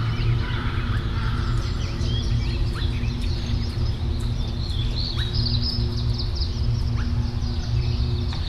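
Small birds chirping over a steady low hum.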